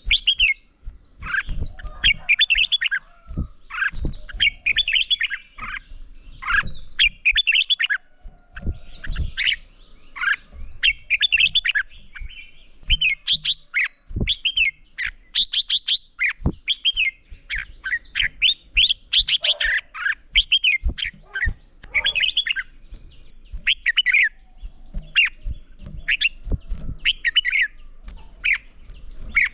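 Red-whiskered bulbul singing, with short, bright warbled phrases repeated every second or two, the rapid contest song kept caged birds are trained on. Sharp knocks come in between the phrases.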